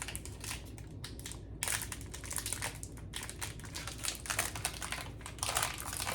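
Plastic candy wrapper crinkling as it is handled and opened, a run of irregular crackles.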